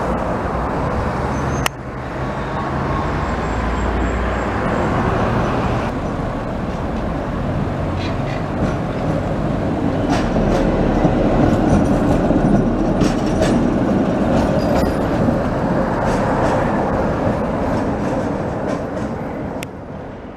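Old tram running on street rails: a steady rumble of wheels and running gear, with a run of sharp clicks and knocks as the wheels pass over rail joints and points.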